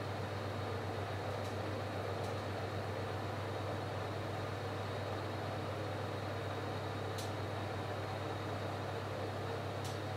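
Steady low hum with an even hiss over it and a faint high whine, broken by a few faint ticks.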